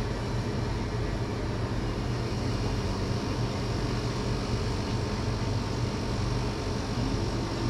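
Steady low rumble and hiss with no speech, and a single sharp click right at the start.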